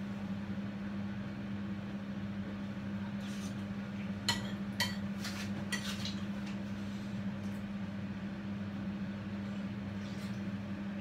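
Steady low hum in the kitchen, with a few light clicks of a fork against a dish between about three and six seconds in as the food is tasted.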